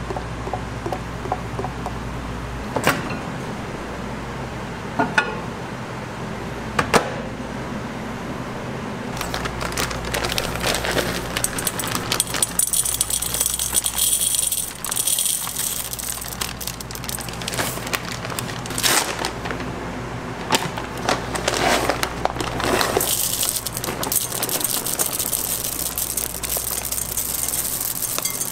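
Chocolate callets poured into a glass bowl, clattering and pattering against the glass in spells, with a few single knocks in the first several seconds and a low steady hum underneath.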